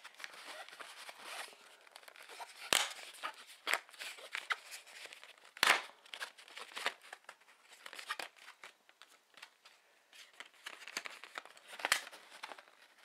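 A thumb drive's card-and-plastic blister pack being torn and pried open by hand: steady crinkling and tearing, with sharp cracks about three seconds in, near six seconds, and near the end.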